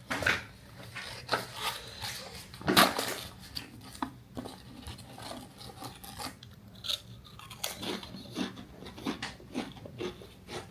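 A tube of pizza-flavoured Pringles being handled and opened and the crisps eaten: a run of short crackles, rustles and crunches, the loudest about three seconds in.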